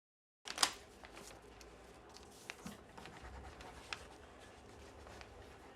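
Faint room tone that starts abruptly about half a second in, with scattered light clicks and taps of small handling noise, the sharpest right at the start.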